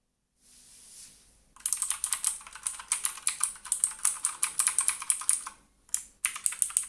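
Typing on a Redragon Manyu (K579) mechanical keyboard: a fast, even run of keystrokes starting about a second and a half in, after a soft hiss, with a brief pause near the end before the typing resumes.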